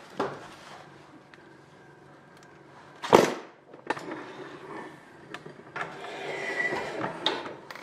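Pneumatic rivet puller setting rivets in a metal bracket: a short loud burst about three seconds in and a longer stretch of air noise about six seconds in, with small metallic clicks and knocks between.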